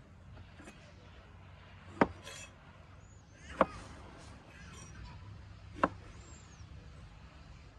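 Cleaver chopping feijoas in half on a wooden cutting board: three sharp knocks as the blade goes through the fruit into the board, with quieter handling of the fruit between them.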